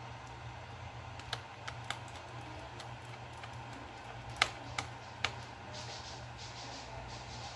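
A handful of sharp clicks from small hard laptop parts being handled, in two groups of three, the loudest about four seconds in, over a steady low hum.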